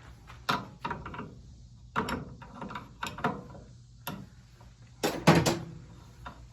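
Irregular metallic clicks and clinks of hand tools and small engine parts being handled, about a dozen sharp ticks and knocks, with the loudest cluster about five seconds in.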